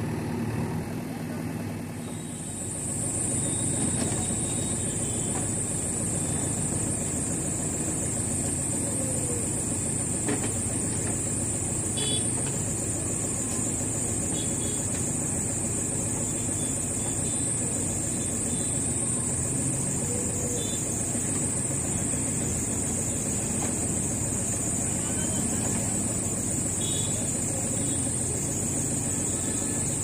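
JCB 3DX backhoe loaders' diesel engines running steadily while digging and loading mud. A steady high-pitched hiss sits over them from about two seconds in.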